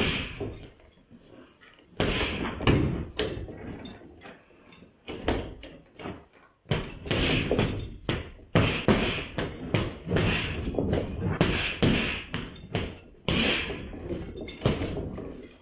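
Gloved punches landing on a hanging heavy bag: flurries of quick thuds, with short pauses about a second in and again around six seconds in.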